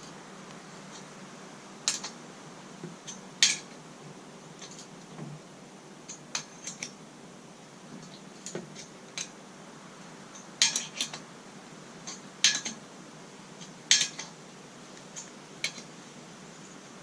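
Sharp metallic clinks and ticks at irregular intervals, a few louder ones among many small ones, from an adjustable wrench turning a thread tap by hand in a steel part.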